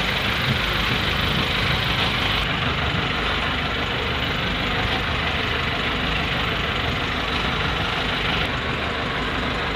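Motorized outrigger fishing boat's engine running steadily while the boat is underway.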